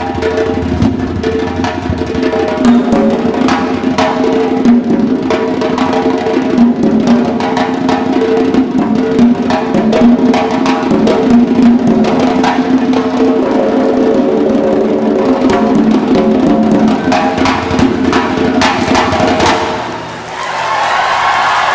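Orchestra playing with dense, rapid drum strokes over held notes. About twenty seconds in the music drops back briefly and a new, brighter passage begins.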